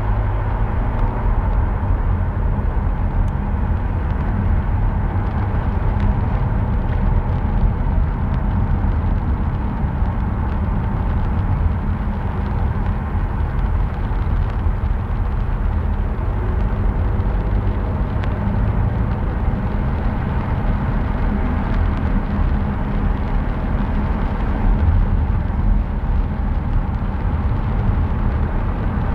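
Car driving: a steady low rumble of engine and road noise with an even hiss above it.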